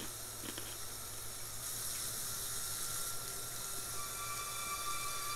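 Deep fryer sizzling: a steady hiss. A faint, steady high tone joins it about four seconds in.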